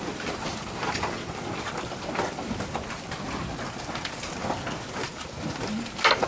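Zebu-type beef bulls milling in a muddy corral: a steady crackly patter of hooves shifting in wet mud, with one sharp knock just before the end.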